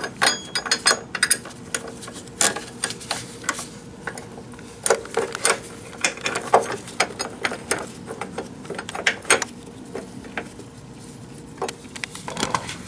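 Irregular metal clicks and taps as bolts, washers and copper ground-cable lugs are handled and fitted onto a car's rear suspension bushing plate.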